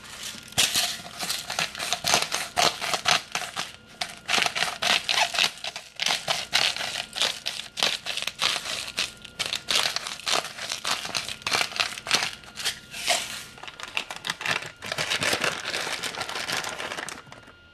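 Dense, irregular crackling and crinkling while salt is sprinkled by hand over the filling on the parchment-lined dough. It eases briefly twice and stops just before the end.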